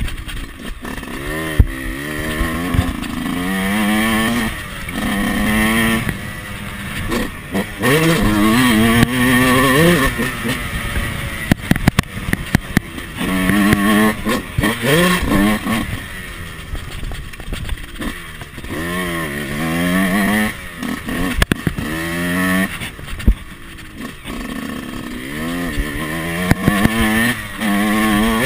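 Yamaha YZ125's 125 cc two-stroke single-cylinder engine revving hard under acceleration, its pitch climbing steeply and dropping back again and again as the rider opens the throttle and shifts.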